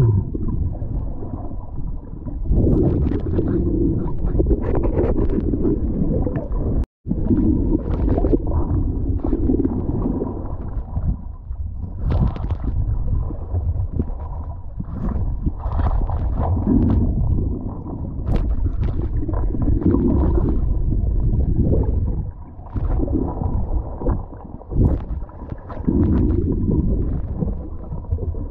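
Muffled underwater rumble and sloshing of water moving around a submerged camera, with scattered clicks and knocks as a gloved hand brushes over oyster-encrusted rock. The sound cuts out for a moment about seven seconds in.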